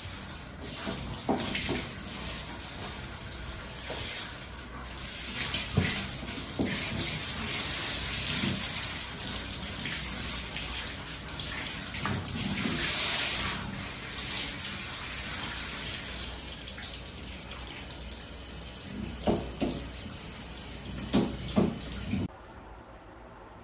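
Water running from a handheld shower head onto a dog in a shower stall: a steady hiss of spray with a few short knocks. The water stops abruptly near the end.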